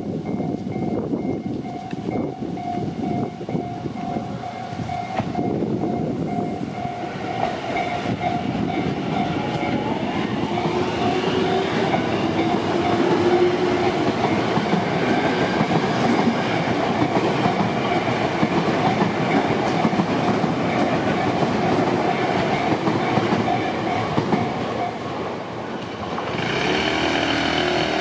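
Tobu Tojo Line electric train passing over a level crossing, its wheels clacking over the rail joints and the rush growing louder about ten seconds in. Meanwhile the crossing's electronic warning bell dings steadily. The bell stops a few seconds before the end, and a road vehicle's engine comes in as traffic starts across.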